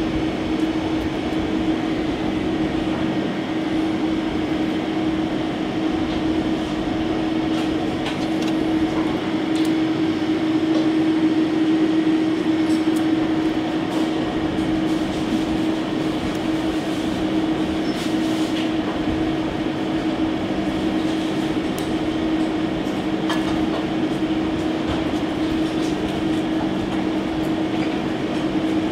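Steady droning hum of kitchen ventilation, one constant low tone over an even rush of air, with a few faint light clicks.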